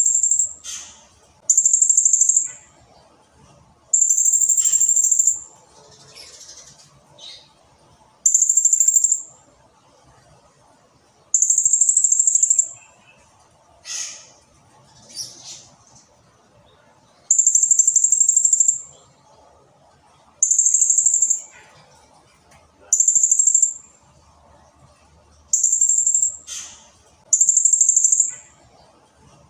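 Blue-crowned hanging parrot (serindit) giving a long series of very high, shrill calls, each lasting about a second and repeated every few seconds, with fainter, shorter chirps in between.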